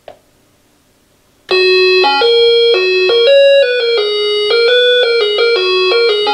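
Dakota Alert auxiliary chime playing its third selectable alert tune, set off by motion at the driveway transmitter: a melody of clear electronic doorbell-style notes that starts about a second and a half in and is still playing at the end. A faint click comes right at the start.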